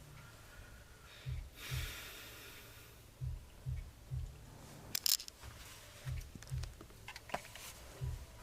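A hip-hop beat playing faintly from the studio speakers: deep kick or 808 hits in pairs about every two seconds, a hissing swell about two seconds in, and a sharp snare-like crack about five seconds in.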